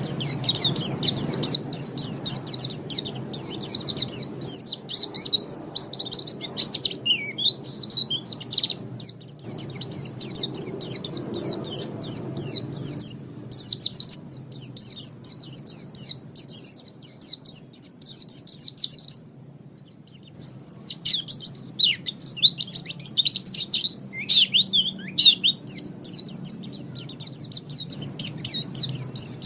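Pleci (white-eye) singing a long, fast, twittering song of high chirps, with a break of about a second about two-thirds of the way through.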